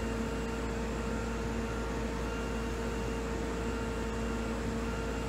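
Steady machine hum with a constant mid-pitched tone over a even background hiss.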